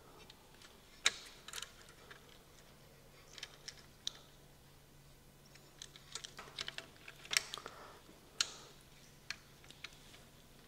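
Irregular light clicks and taps of small parts being handled on an old circular saw's motor as its carbon brushes are worked back into place by hand. A faint steady hum runs underneath from about two seconds in.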